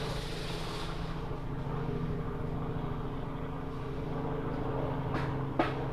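A steady, low engine drone, with one sharp click near the end.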